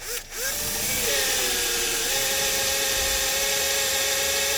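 Ridgid electric drill spinning up and boring into a jammed ignition lock cylinder, its steady whine dipping slightly in pitch about two seconds in.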